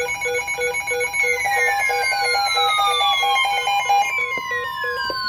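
NOAA Weather Radio alert signalling a warning broadcast: repeated electronic beeping, then, from about a second and a half in, the long steady single-pitch attention tone. Two falling tone sweeps, one about a second in and one about four seconds in, are laid over it.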